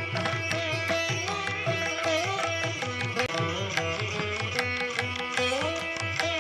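Background instrumental music in an Indian classical style: a plucked string melody that bends between notes over hand-drum strokes.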